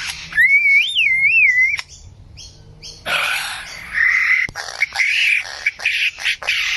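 A bird calling: a clear, wavering whistle that rises and falls for about a second and a half, then after a short pause a run of harsh, noisy calls broken by sharp clicks.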